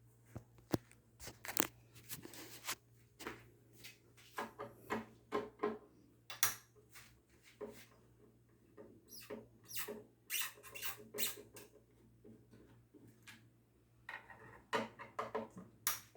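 Irregular small clicks, scrapes and squeaks of hands and tools working on a disassembled loudspeaker cabinet, over a low steady hum.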